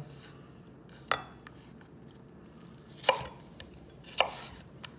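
Chef's knife chopping celery stalks on a wooden cutting board: three separate sharp chops, the first with a brief metallic ring.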